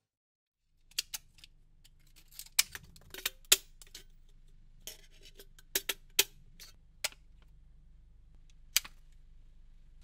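Arsenal 8-inch heavy-duty 'T-Rex' electrician's scissors cutting through test materials: about a dozen sharp snips at uneven intervals, starting about a second in, the loudest about three and a half seconds in.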